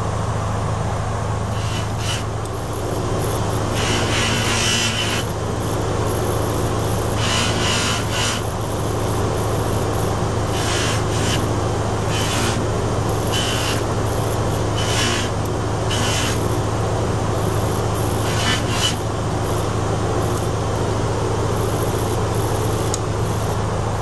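Bench buffing machine running with a steady low motor hum while a sterling silver buckle is pressed against the spinning buffing wheel for its final buff, giving several short hissing rubs that come and go.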